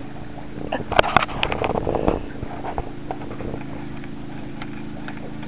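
A boat's outboard motor idles with a steady low hum. About a second in come two sharp clicks, followed by a brief clatter of handling noise.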